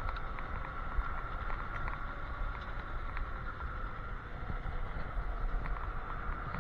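Wind rushing over the microphone and road noise from an electric scooter riding at speed on pavement, with a steady high whine and light clicks and rattles from bumps.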